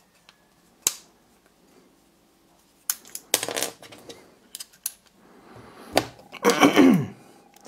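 Small steel parts of an ISSC MK22 trigger group being handled and fitted into its housing, giving sharp metallic clicks and clinks. There is a single click about a second in, a cluster of clicks and rattles around three seconds, and another sharp click at about six seconds.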